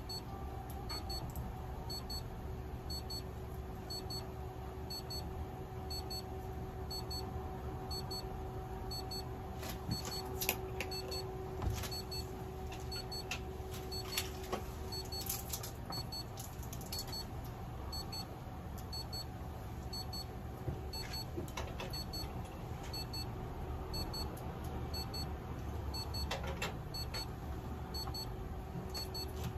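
Steady electrical hum of equipment in a veterinary treatment room, with a faint high beep repeating at an even pace and a few small clicks and rustles from handling.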